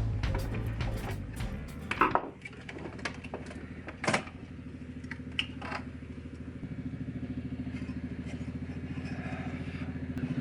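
Background music for about the first two seconds, then a steady low mechanical hum with a fast, even pulse, broken by a few sharp clicks.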